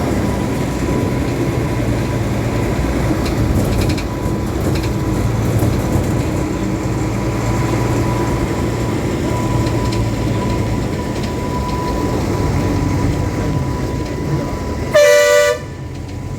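Steady engine and road rumble of a vehicle driving in traffic, with one short, loud two-tone horn blast near the end.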